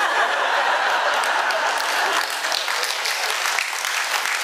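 A congregation laughing and applauding together. The laughter is strongest in the first two seconds and then dies down while the clapping carries on.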